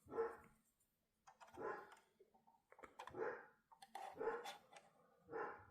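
A dog whimpering faintly, short whines repeating about once a second. A few light clicks come in between, from a small part of a diecast model car being opened.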